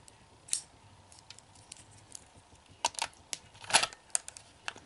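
Small plastic clicks and clacks of a Ranger key being handled and pushed into the keyhole of a Power Rangers Super Megaforce Legendary Morpher toy: one click about half a second in, then a quick run of sharper clicks in the last two seconds.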